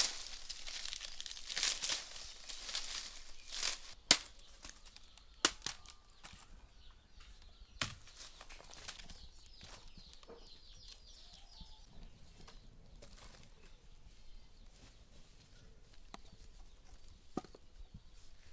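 Leaves rustling and crinkling as they are handled and folded, busiest in the first four seconds, with a few sharp snaps about 4, 5.5 and 8 seconds in, then only sparse, quieter rustles.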